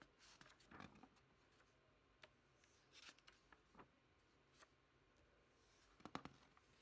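Near silence with a few faint rustles and light ticks: a short cluster about a second in, a few more around three seconds, and a sharper cluster near the end.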